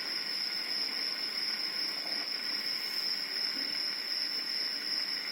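A steady hiss with a constant high-pitched whine underneath, and no distinct events.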